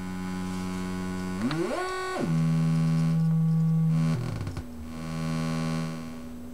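Just Friends Eurorack function generator sounding as synth oscillators in its original Spill mode, a steady buzzing drone. About a second and a half in, the pitch sweeps up, holds briefly and drops back. It then settles on a louder steady tone that shifts to a new pitch about four seconds in.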